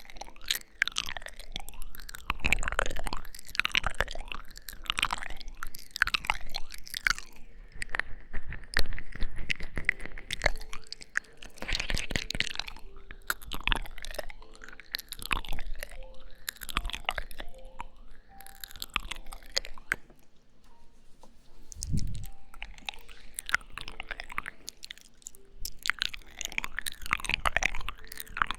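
ASMR mouth sounds close to the microphone: a quick, continuous series of wet lip smacks and kisses, with a short lull about two-thirds of the way in.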